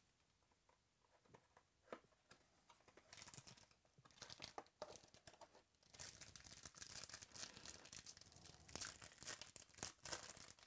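Foil trading-card pack wrapper crinkling and tearing as it is opened by hand, after a few light taps and rustles; the crinkling grows dense about six seconds in.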